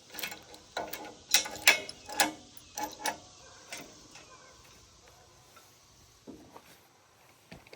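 A quick run of sharp clicks and knocks, densest in the first three seconds or so, then fading to a few faint ticks.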